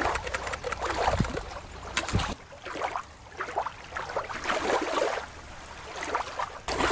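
Shallow water lapping and trickling at the shoreline, with small splashes. A little over two seconds in it cuts to a different, bubbling water sound that runs until near the end.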